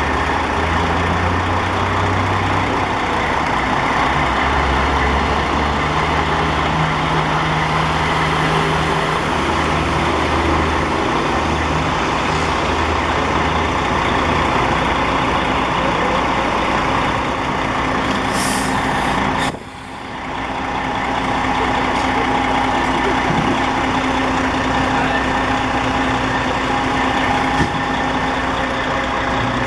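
Fire engine's diesel engine running close by as the truck manoeuvres, a steady low drone. About two-thirds of the way through there is a short hiss, like an air-brake release, and the sound briefly drops away.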